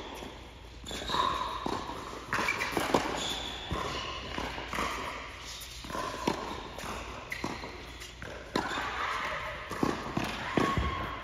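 Tennis rally: sharp knocks of the racket striking the ball and the ball bouncing on a hard court, coming several times at irregular spacing.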